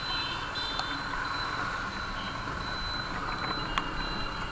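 Yamaha MT-15 motorcycle under way: steady wind and road noise with a thin, steady high tone above it.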